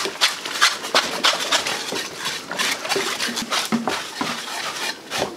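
Scraping the bristles off a scalded pig carcass in a wooden tub: quick, rasping strokes repeating about two to three times a second.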